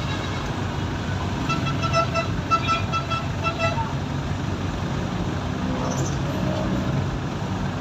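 Jeepney engine running with a steady low rumble, heard from inside the passenger cabin. About one and a half seconds in, a horn sounds a quick series of short beeps in three bursts lasting about two seconds.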